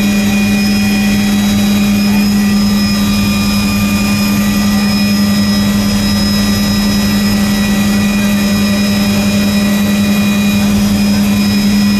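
Cabin noise of a small helicopter in flight: the engine and rotor give a steady drone with a strong low hum and faint, steady high whines, unchanging throughout.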